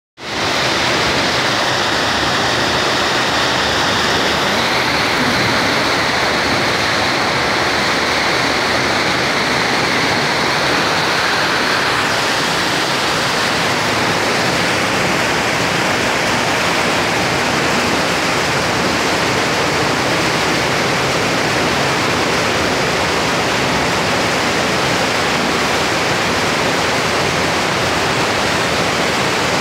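Steady rush of water from a spa pool's cascade fountain pouring into the pool, with the pool's churning water.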